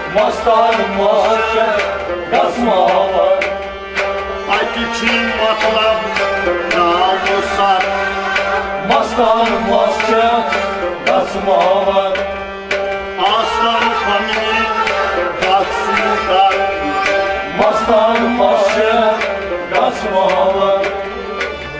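Instrumental interlude of Kashmiri folk music. Harmonium and bowed sarangi carry a wavering melody, with plucked rabab, over a steady beat drummed on a clay pot (nout).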